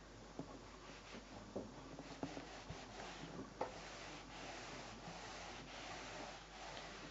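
Faint rubbing of a household iron sliding back and forth over fabric as fusible-web appliqué shapes are pressed in place, with a few light knocks in the first half.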